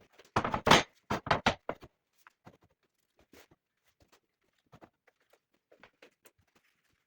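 A quick run of loud knocks and clatters in the first two seconds, then scattered faint clicks.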